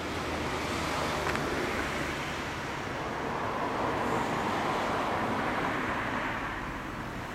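1998 BMW R1100S's air/oil-cooled boxer twin idling steadily through a Stainless Tune aftermarket exhaust.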